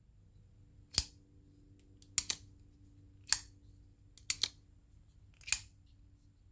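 Bestech Slasher folding knife being flicked open and dropped shut, a string of sharp clicks about once a second as the blade snaps into place, two of them in quick pairs.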